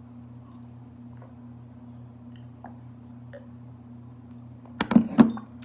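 A steady low hum with a few faint ticks, then a quick cluster of three or four loud clicks and knocks about five seconds in.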